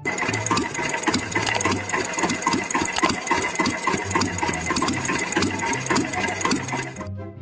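A machine running with a fast, even clatter of about four strokes a second and a steady high whine, starting abruptly and dropping away near the end.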